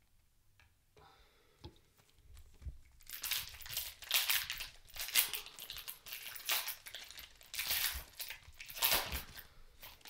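Foil wrapper of a Panini Prizm trading card pack being torn open and crinkled in the hands: a run of crackling rustles starting about three seconds in.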